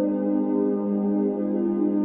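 Ambient background music: soft, sustained synthesizer-like tones.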